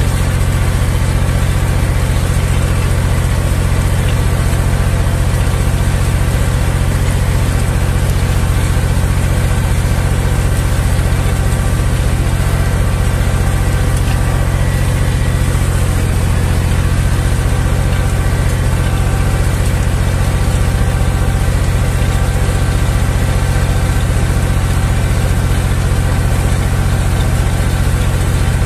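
Zetor 5011 tractor's three-cylinder diesel running steadily under load, pulling a two-furrow plow through the soil, with a strong, even low rumble.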